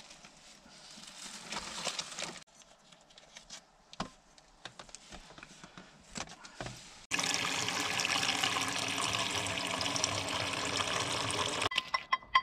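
Water pouring in a steady stream for about four and a half seconds, starting and stopping suddenly, after a few seconds of light handling rustles; a few sharp clicks follow near the end.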